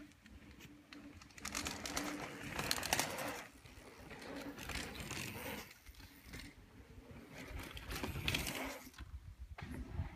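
Mountain bike tyres rolling and crunching over packed dirt on a jump line. The noise swells and fades about three times as riders pass.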